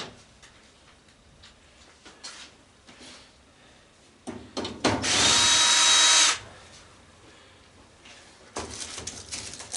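Power drill-driver with a 1/4-inch nut driver bit running steadily for about a second and a half, backing out a screw on a gas stove, then stopping suddenly. A few clicks come just before it, and light metal rattling follows near the end.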